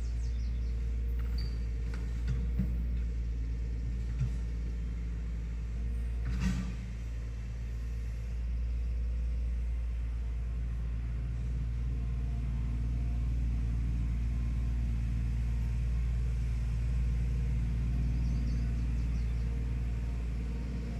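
Steady low rumble of an engine running, with a few light knocks about two, four and six and a half seconds in.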